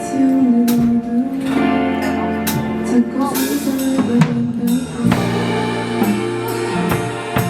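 Live band music: a singer's held, wavering melody over guitar and a drum kit with regular cymbal and drum hits.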